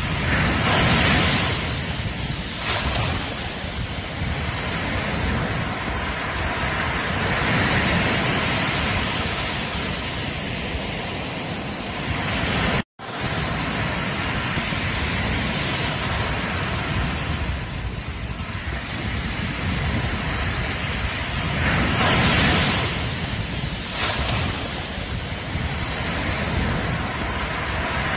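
Ocean surf: a steady rush of breaking waves that swells and eases every few seconds, cut off for an instant about 13 seconds in.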